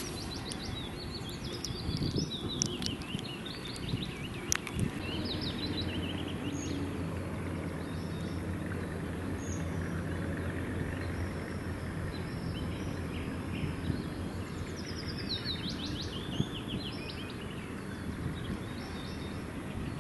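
Several small birds chirping and trilling in short repeated phrases over a steady outdoor background, with a low steady hum joining about five seconds in and fading out a little past the middle.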